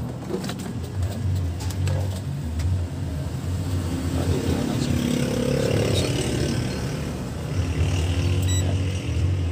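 A low, continuous engine-like rumble, like a motor vehicle running, swelling louder around the middle, with a few faint clicks.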